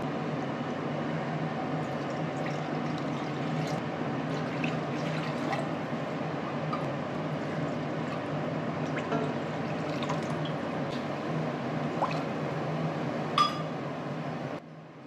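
Water poured from a steel measuring cup into a stainless steel kadai, filling the pan, over a steady background hum, with small clinks of the cup against the pan and one sharp metal clink near the end.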